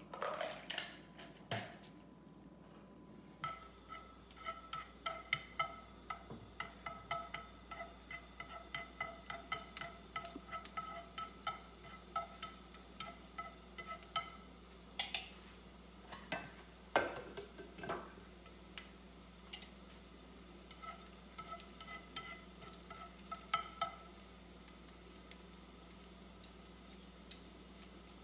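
Chopped garlic frying in a nonstick pan, stirred with chopsticks that tap and scrape against the pan many times a second. A few knocks come before the stirring begins.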